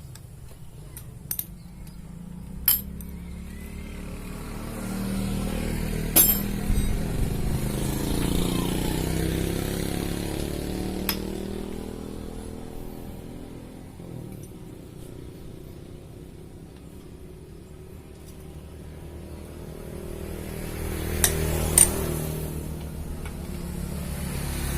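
A motorcycle engine running, with its sound swelling twice and fading between. Several sharp metallic clinks sound over it.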